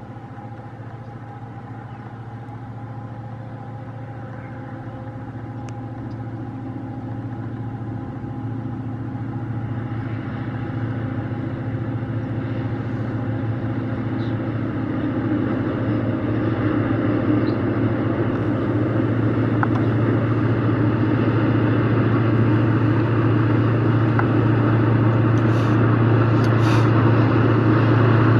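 Diesel locomotive engine running under power with a steady low drone as it hauls a freight train, growing steadily louder as it approaches.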